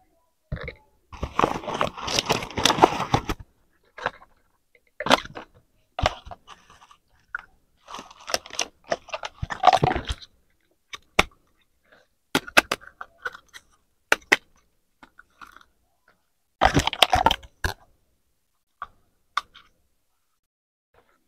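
Small hard-plastic toy kitchen pieces being handled: cups, plates and pots clicking, clacking and scraping against each other in several short bursts. The longest burst comes near the start, and the last few seconds are quiet.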